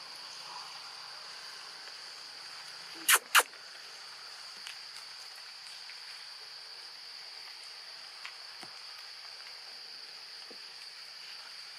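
Steady high-pitched drone of insects in the trees. About three seconds in, two short, sharp, loud sounds come a quarter second apart.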